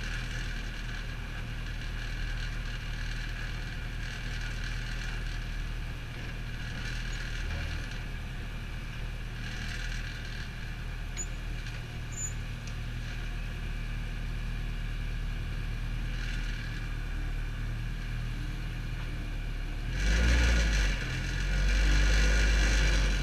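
Car engine running steadily at low revs with road noise, then revving louder in a rising and falling burst near the end.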